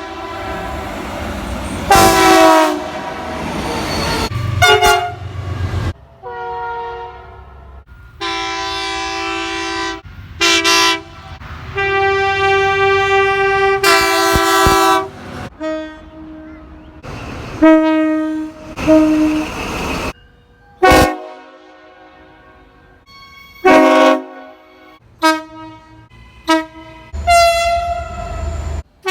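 Locomotive horns sounding in a quick succession of separate recordings, cut abruptly from one to the next. Long held blasts alternate with short toots, at several different pitches.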